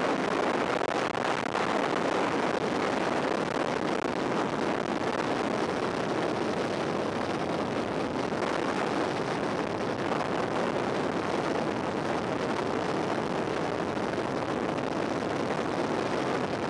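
Steady rush of wind over the microphone of a sunglasses camera on a fast downhill bicycle ride.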